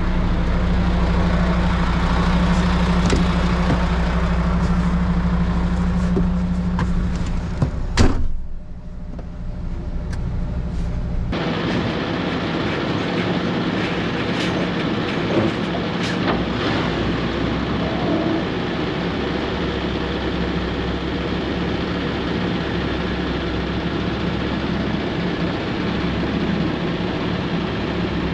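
Heavy truck's diesel engine running steadily. A single sharp knock about eight seconds in is followed by a brief dip, then the engine noise carries on.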